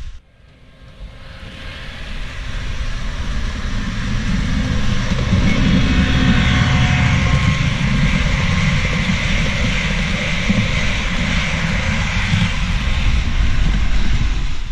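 TGV PSE high-speed train sound of a pass at speed: a rushing noise over a deep rumble that builds over the first few seconds, holds steady, and cuts off suddenly at the end.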